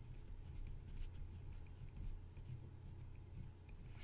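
Red felt-tip marker writing on paper: faint, scattered scratchy strokes and taps over a low steady hum.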